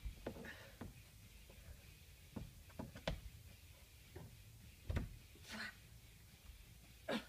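Sparse, quiet knocks and scuffs of a climber's shoes and hands on plastic bouldering holds and the wall, at irregular moments, with a firmer knock about five seconds in. There are two brief scraping rushes, one just after that knock and one near the end.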